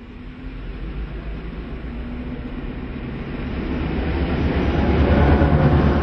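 Diesel locomotives hauling a freight train, led by ex-Victorian Railways B class B76 with its EMD two-stroke V16 engine, running towards and past at close range. The engine drone and wheel noise grow steadily louder, at their loudest near the end as the locomotives go by.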